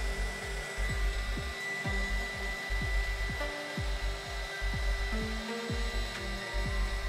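Handheld heat gun running, its fan blowing steadily with a thin high whine, used to shrink heat-shrink tubing. Background music with a steady beat plays under it.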